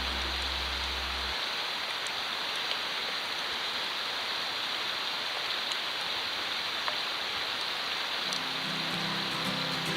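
Wood fire burning in a wire-frame fire stand: a steady hiss with sparse small crackles.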